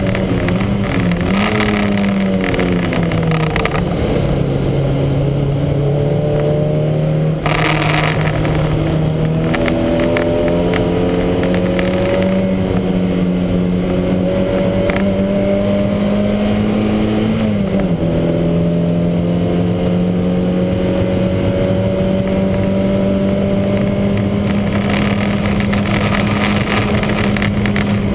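Lancia Montecarlo's four-cylinder engine, heard on board at racing revs, running with the heavy misfire the car has. Its pitch dips twice in the first few seconds, climbs slowly, dips again about two-thirds of the way through, then climbs once more.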